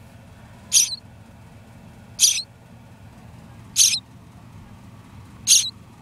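A small animal giving four short, high-pitched, hissy calls, one about every second and a half.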